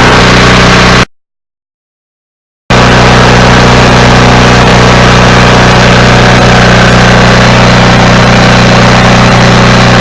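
Briggs & Stratton portable generator engine running steadily and smoothly on its freshly cleaned carburetor. About a second in, the sound cuts off abruptly to total silence for about a second and a half, then resumes unchanged.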